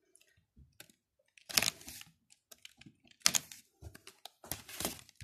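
Pages of an A5 paper gift-tag pad being leafed through by hand: light paper rustles and ticks, with three louder page swishes spaced a bit over a second apart.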